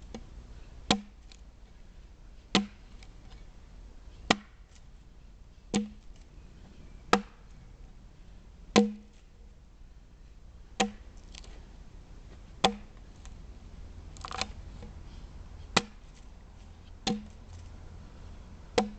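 Axe strokes biting into a soft white-poplar log as it is hewn square into a beam by hand: about a dozen sharp chops, each a dull thud with a crack, roughly one every one and a half to two seconds.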